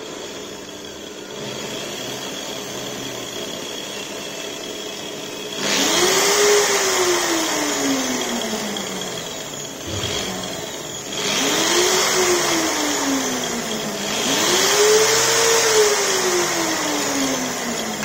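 Angle grinder's universal motor run through a triac speed controller. It runs slowly and steadily at first, then three times its whine jumps up in pitch and loudness as the speed knob is turned up and slowly falls away as it is turned back down.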